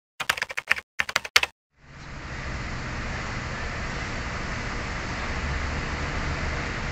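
A typing sound effect: a quick run of keyboard key clicks for about a second and a half. It then cuts to steady outdoor background noise, an even hiss over a low rumble of traffic and engines.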